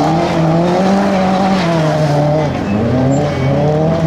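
Rally car's engine running hard at high revs as the car slides across loose gravel. The engine pitch drops briefly at the start and again about two and a half seconds in, then climbs back up.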